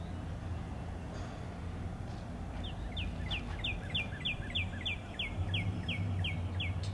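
A songbird singing a run of about a dozen repeated notes, each sliding down in pitch, roughly three a second, starting about two and a half seconds in. A steady low hum lies underneath.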